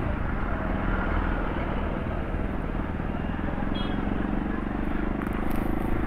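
City street traffic: motorcycles and cars running past at low speed, a steady mixed engine rumble.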